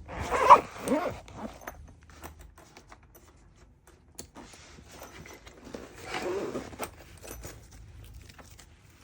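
Unboxing handling noise: packaging rustling and the clicks and knocks of an instrument case being opened, with a short gliding vocal sound about half a second in. Louder rustling comes again around the middle.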